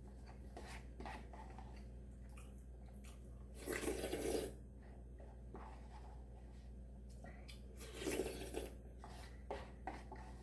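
Close-miked eating sounds: small mouth and utensil clicks, with two louder noisy bursts about four seconds and eight seconds in, over a steady low hum.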